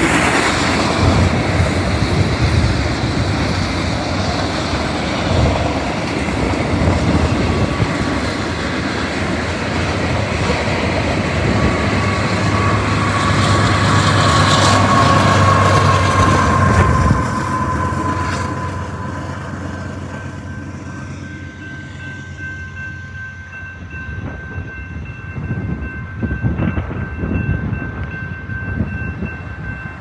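Freight train of autorack cars rolling past with a steady rumble and clickety-clack of wheels on rail joints. About halfway through, the Union Pacific rear distributed-power locomotive goes by with a steady engine drone and a high whine that falls in pitch as it passes. The train noise then fades, leaving the grade-crossing bell ringing steadily.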